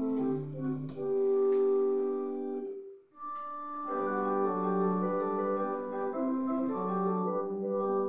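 Software pipe organ played from a MIDI keyboard and heard through loudspeakers: sustained chords that break off briefly about three seconds in, then a new phrase of held chords begins.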